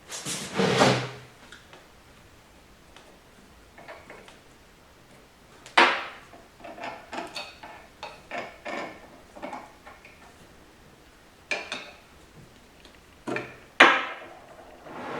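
Scattered knocks, clinks and scrapes of transmission parts and hand tools being handled during reassembly. The loudest come about a second in and near the end.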